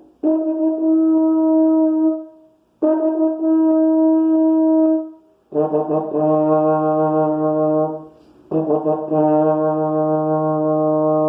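A low brass instrument playing four long held notes, each about two seconds, begun with a sharp tongued attack: two higher notes, then two an octave lower, with the lower pair brighter.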